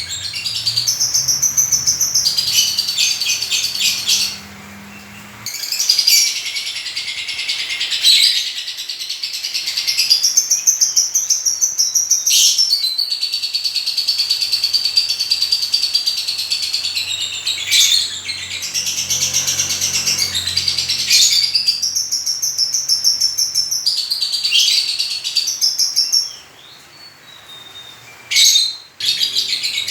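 A pet lovebird chattering in a fast stream of high-pitched chirps and squeaks. It breaks off briefly twice, once near the start and once near the end.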